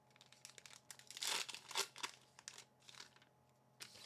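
A Magic: The Gathering booster pack's plastic-foil wrapper being torn open and crinkled in the hands, in a run of irregular rustles with the loudest tearing a little over a second in.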